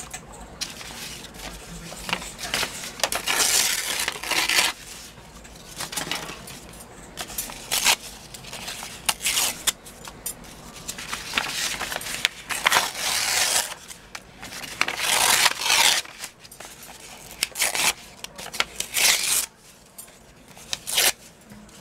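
Painted paper being torn and handled, with repeated rips and rustles, each about a second long.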